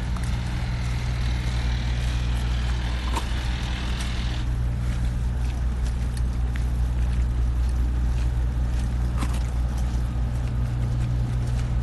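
A steady low engine hum, with a hissing noise over it that stops about four seconds in.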